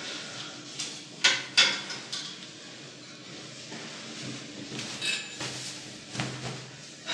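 Two sharp clacks close together about a second in, then the rustle and swish of a suit jacket being pulled on and shrugged into place.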